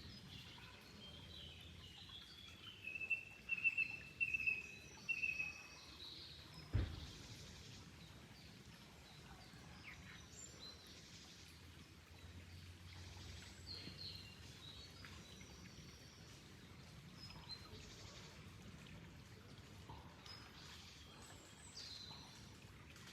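Wild birds chirping and calling over a faint steady wash of flowing water. About three seconds in, a run of loud repeated chirps lasts some three seconds, and a single low thump comes about a second later.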